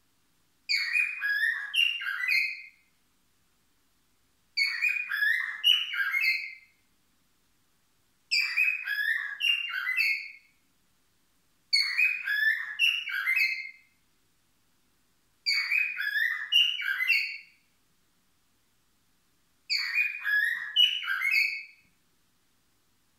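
Cockatiel whistling an imitation of a mobile phone ringtone: the same two-second phrase of quick high notes repeated six times, with short pauses between.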